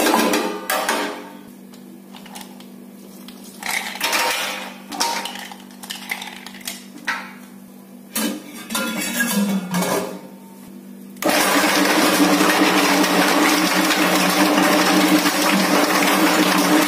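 A plastic scraper scraping and knocking in short bursts against the stainless-steel bowl of a bakso (meatball) dough mixer. About eleven seconds in, the mixer switches on and runs steadily and loudly, churning the dough.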